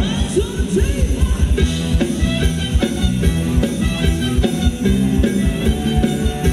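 Live band playing upbeat Thai ramwong dance music, with a fast, steady drum beat under bass and guitar.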